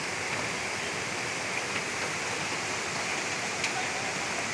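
Floodwater rushing in a steady, even roar of moving water.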